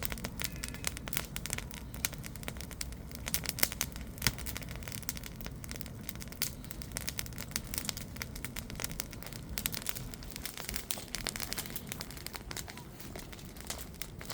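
Bonfire burning, wood crackling and popping irregularly over a low steady rumble.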